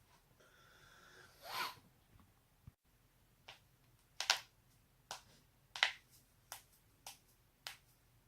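Neck joints cracking in a quick series of sharp pops, about seven of them roughly two-thirds of a second apart, two of them much louder than the rest. A softer swish comes first, about a second and a half in.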